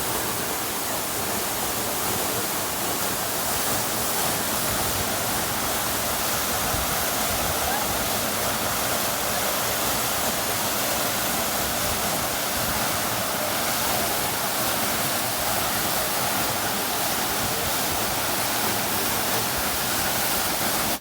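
Waterfall rushing, a steady, even wash of falling-water noise that cuts off suddenly at the end.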